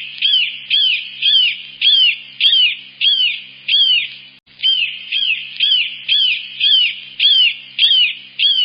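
Hawk calling: a steady series of loud, high, shrill notes that each rise and fall in pitch, about two a second, with a short pause about four and a half seconds in.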